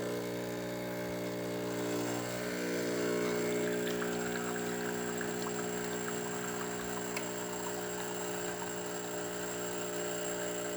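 Pasquini espresso machine's newly replaced water pump running steadily while pulling an espresso shot: an even hum with the espresso pouring into the cup.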